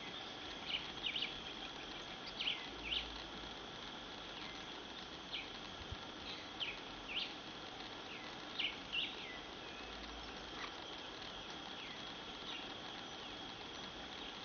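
A steady high-pitched insect trill, with short, high, downward-sliding bird chirps about a dozen times at irregular intervals.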